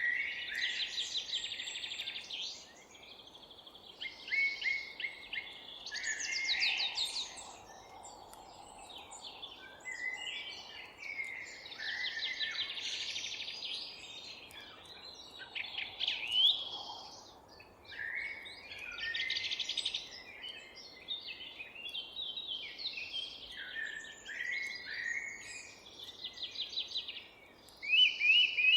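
Songbirds singing in a park garden, several short song phrases and rapid trills following one another throughout, over a faint steady background hum.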